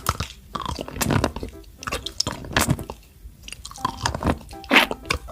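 A person biting and chewing food, in irregular crunchy snaps and chews.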